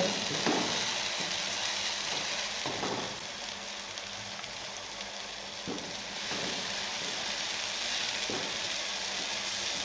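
Chicken masala of onion, garlic, tomato and green chilli sizzling as it is stir-fried in a nonstick wok, with four short knocks of the wooden spatula against the pan. The sizzle dips a little in the middle and comes back up.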